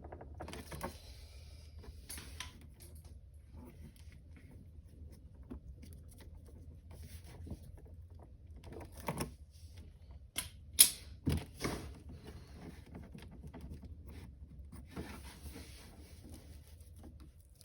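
Scattered light clicks and taps of hands and small tools working on the cord's wire connections, with a few sharper clicks a little past halfway, over a faint low hum.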